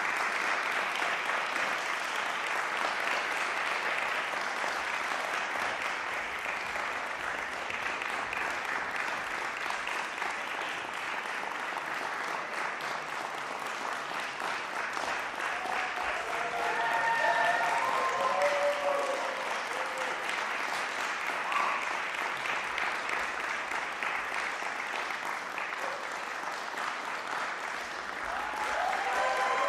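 Audience applauding steadily, with a few voices calling out over the clapping about halfway through and again near the end.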